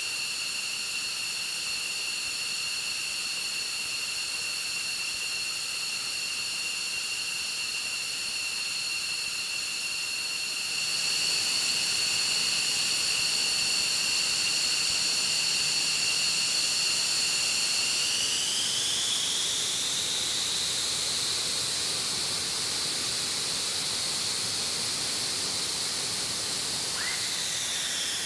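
F-15 fighter's jet engines running at ground idle: a steady high-pitched whine over a hiss. It grows louder about a third of the way in, rises in pitch about two-thirds in, then dips again near the end.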